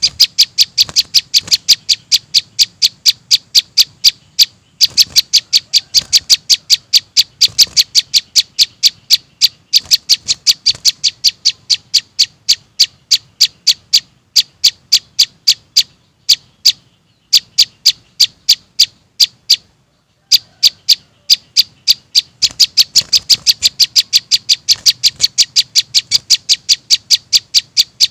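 Recorded calls of young prinias: short, high, sharp chirps repeated rapidly, about three or four a second, with a few brief breaks. It is a looped lure recording used to draw small birds.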